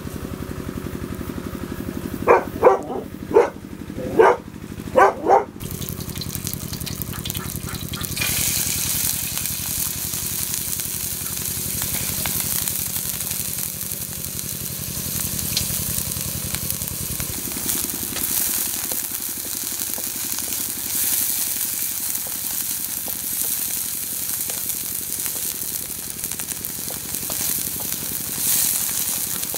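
Raisins sizzling as they fry in a shallow steel pan over a wood fire, stirred now and then with a wooden spatula. The sizzle sets in about eight seconds in. Before it, about two seconds in, come five short pitched calls.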